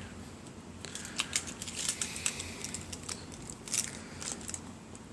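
A run of light, irregular clicks and rustles starting about a second in: fingers tapping at a car door's keyless entry keypad.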